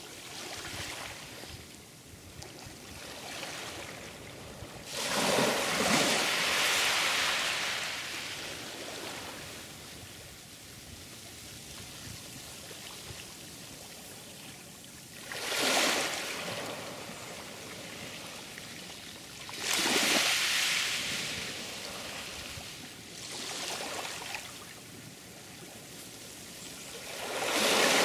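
Sea waves breaking and washing in over a steady hiss of water. The surf swells up loudly five times, the longest surge about five seconds in.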